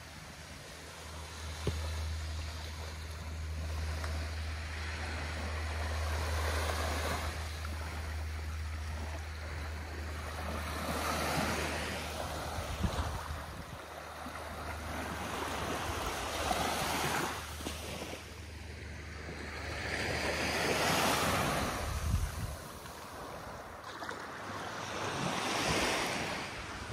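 Small waves lapping and washing onto a sandy beach, swelling and fading every four or five seconds. A low steady hum sits under them, strongest in the first half.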